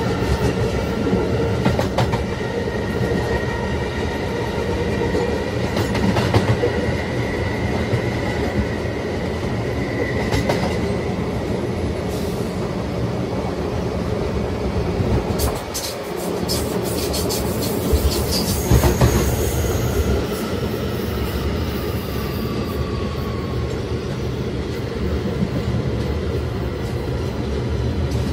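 Kawasaki-built R211 subway car running between stations, its Alstom OptONIX IGBT-VVVF traction inverter whining in several tones over wheel and rail noise. About two-thirds through there is a burst of clicks and a brief high wheel squeal, and after it the inverter tones slide down in pitch.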